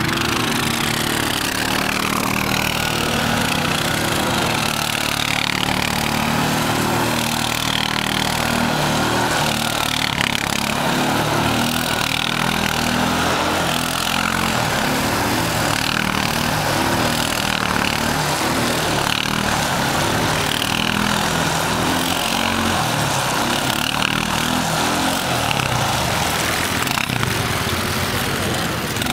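CFMOTO quad bike engine revving up and falling back over and over as the ATV spins circles in snow.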